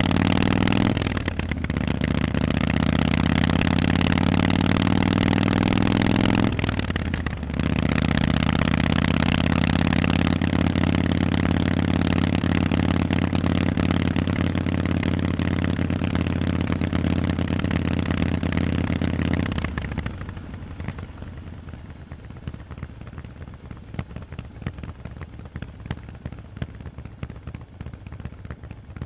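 Harley-Davidson Forty-Eight's air-cooled V-twin running loud through Vance & Hines exhausts under throttle, with two brief breaks, about a second in and about seven seconds in, that sound like gear changes, the pitch climbing after each. About twenty seconds in the throttle comes off and the sound falls much quieter and uneven.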